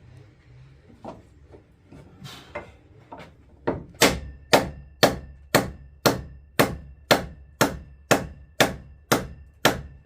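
Club hammer striking steadily, about two blows a second, knocking a piece down into place on the roof. A few lighter taps come first, then about a dozen hard blows with a faint ring.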